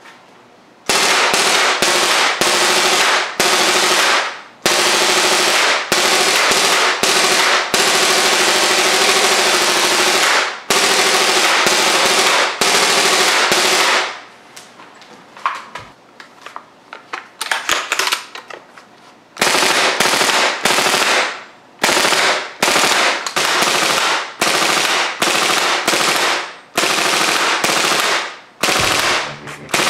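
Airsoft M60 with an HPA-powered Daytona gas-blowback kit firing full-auto, a loud rapid rattle of the bolt cycling. Several bursts in the first half run several seconds each; after a pause of a few seconds with a few single shots comes a string of short bursts of about a second each.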